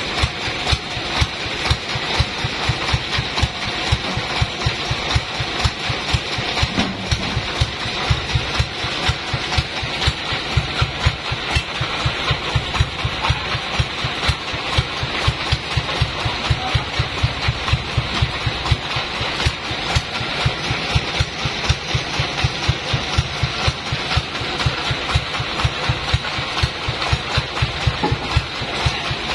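Sawmill engine idling steadily with a regular pulsing beat.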